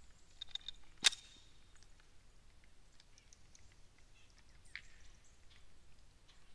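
A single handgun shot about a second in, a sharp crack with a brief ring, followed by faint chirps of birds in the background.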